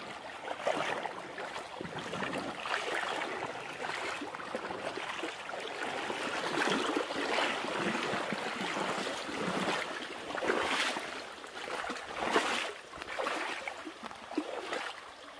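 Creek water rippling and babbling steadily as it runs fast around fallen logs and over a shallow riffle.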